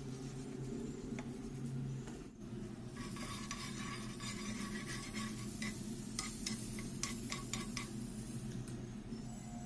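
French toast frying in a pan, sizzling, with a metal utensil clicking and scraping against the pan several times in the middle; a steady low hum runs underneath.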